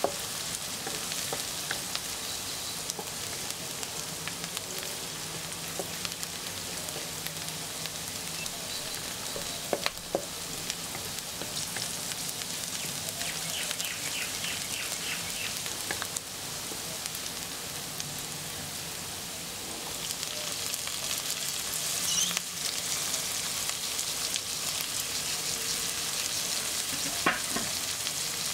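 Chopped onion, garlic and green chilies sizzling in oil in a nonstick wok, stirred with a spatula, with a few sharp taps of the spatula on the pan. The sizzle grows louder about two-thirds of the way through, as diced carrot and green bell pepper go in.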